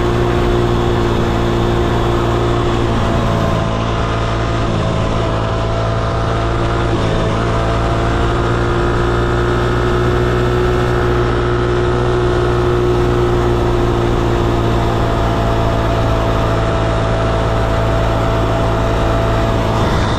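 Small gas minibike engine running steadily, its pitch shifting slightly a few seconds in and then holding.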